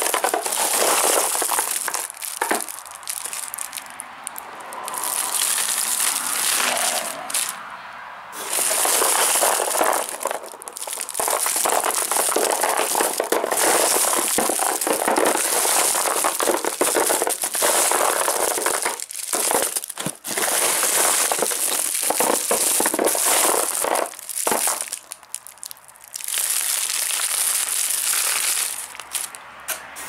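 Hand stirring and scooping wrapped candies in a cardboard box: continuous crinkling and rustling of foil and cellophane wrappers as the sweets slide and drop, with a few short lulls.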